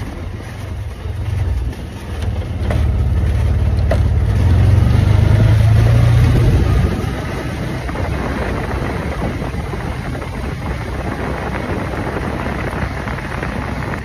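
Engine of an open-cab side-by-side utility vehicle running as it drives across a field. It swells louder for a few seconds in the middle, then settles to a steady hum.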